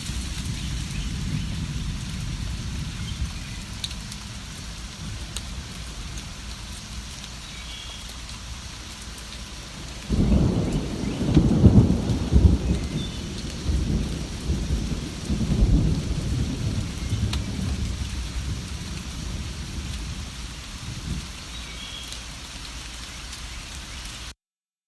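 Steady rain falling, with a low rumble of thunder starting suddenly about ten seconds in and rolling away over several seconds. A few faint bird chirps sound over the rain, and everything cuts off abruptly near the end.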